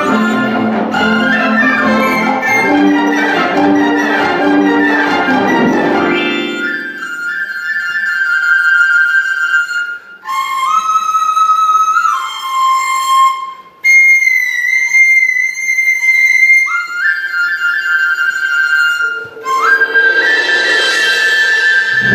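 A symphony orchestra plays and fades out about six seconds in, leaving a solo transverse flute holding long high notes on its own, with a few short breaks between them. Near the end the orchestra comes back in softly under the flute.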